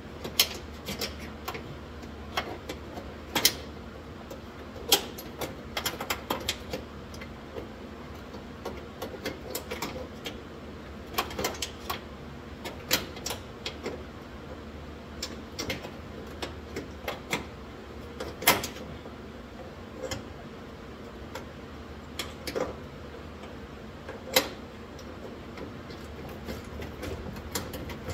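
Sharp metallic clicks and taps of a wrench working a stubborn car door bolt loose a little at a time, coming irregularly and sometimes in quick clusters, over a steady low hum.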